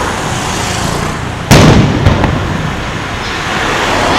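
Aerial firework shells bursting: one loud boom about a second and a half in, then a couple of fainter pops, over a steady rushing background noise.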